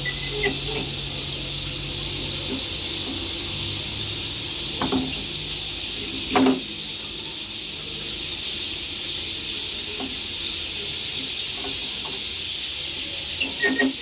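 Many small birds twittering in the trees in a continuous high chorus, with a few short louder sounds, the loudest about six and a half seconds in.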